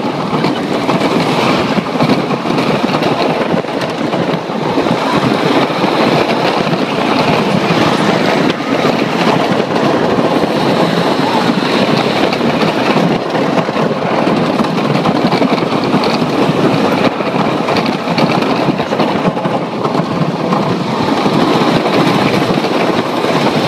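Wooden roller coaster's Millennium Flyer train running over wooden track at speed: a steady loud rumble and clatter of the wheels on the rails.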